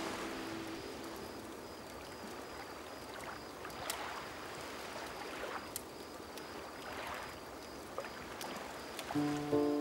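Small sea waves washing onto a sandy beach, a low steady wash that swells every second or two, with a few sharp crackles from a bonfire. Music comes back in near the end.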